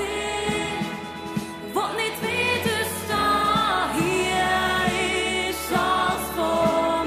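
Christian worship song sung in Swiss German, voice over a band accompaniment with a steady beat.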